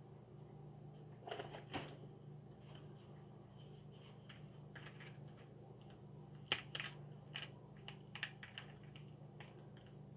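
Faint clicks and rustles of small objects being handled while rummaging through a box: a couple about a second and a half in, then a run of them in the second half, over a steady low hum.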